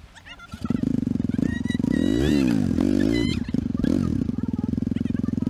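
Motorcycle engine catching about half a second in, then revved hard and repeatedly, its pitch swooping up and down, while people push the bike through soft sand.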